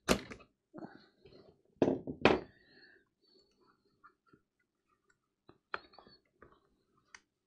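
Knocks and clicks of a corded reciprocating saw handled at close range, its seized blade clamp being worked by hand. There are a few sharp hits, the loudest about two seconds in, with quieter handling noise between.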